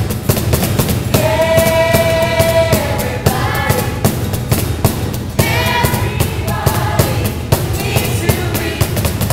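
Live show tune: voices singing over a strummed acoustic guitar and hand-played cajón drumming a steady beat, with a long held sung note about a second in.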